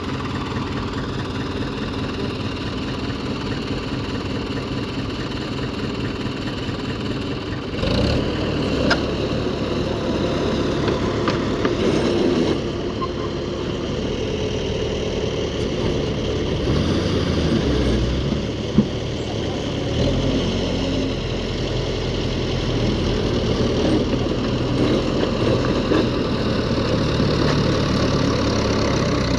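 Heavy diesel engines of earthmoving machinery running steadily, growing louder about eight seconds in. A single sharp knock about two-thirds of the way through.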